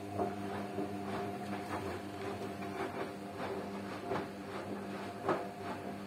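Two front-loading washing machines, one a Beko, running a wash: a steady motor hum as the drums turn, with laundry tumbling in soft, uneven knocks and clicks, one louder knock about five seconds in.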